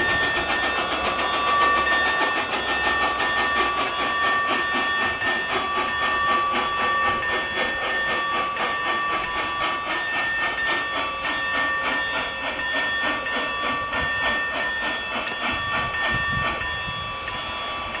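Electronic steam sound from the sound card of a radio-controlled G scale USRA Mallet locomotive running: a fast, steady chuffing exhaust beat with hissing and steady high tones over it, some coming and going every second or two.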